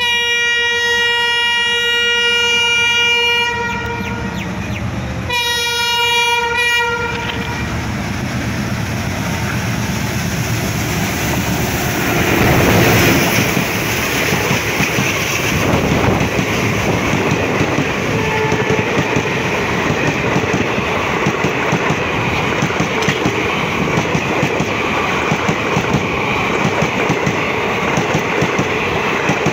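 WDG3A diesel locomotive sounding its horn, a long single-tone blast of about three and a half seconds and a shorter one a couple of seconds later. Then the express train runs on with its wheels clattering over the rail joints.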